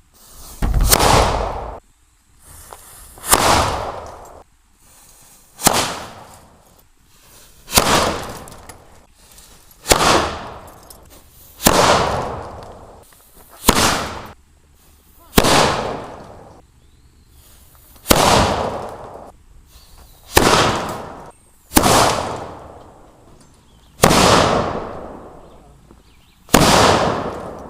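Black powder cannons firing one after another, about thirteen shots roughly two seconds apart, each a sharp bang that trails off in echo.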